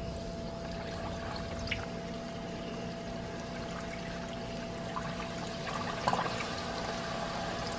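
Battered corn dogs deep-frying in hot oil in a stockpot: a steady sizzle and bubbling as fresh ones go into the oil. A faint steady hum runs underneath.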